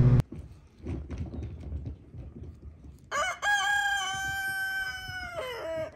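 A rooster crowing once: a long cock-a-doodle-doo beginning about three seconds in, rising sharply, held level, then dropping in pitch at the end.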